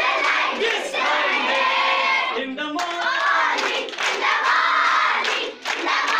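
A group of young schoolgirls chanting and shouting together in unison, with a short break near the end.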